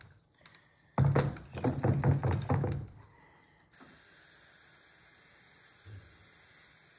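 Hand pump sprayer being pressurised with a quick run of knocking pump strokes, then spraying water in a steady hiss that starts suddenly about four seconds in.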